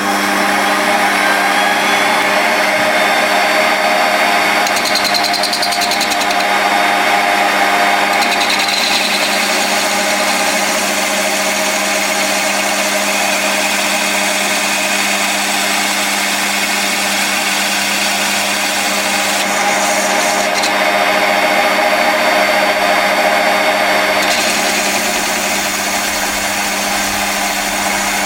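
Small metal lathe running steadily, its motor and drive giving a whine of several held tones, while a boring tool cuts the inside edge of a Zamak flywheel casting.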